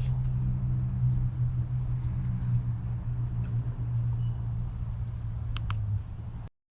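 Steady low mechanical hum, like a motor running, with a few faint high chirps about five and a half seconds in; it cuts off suddenly near the end.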